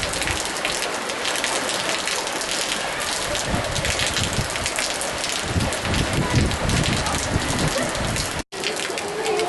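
Heavy rain falling: a dense, steady hiss made of many close drop strikes, with a brief cut in the sound about eight and a half seconds in.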